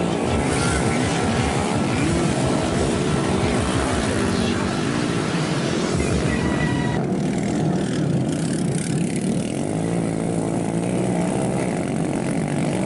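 Small-capacity cub (underbone) motorcycle engines revving and easing off as riders push through mud, the pitch wavering up and down. The sound changes abruptly about seven seconds in.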